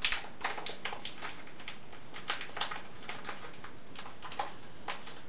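A paper bag crinkling and rustling in irregular crackles as its folded top is twisted shut and a short piece of insulated wire is wound round it by hand.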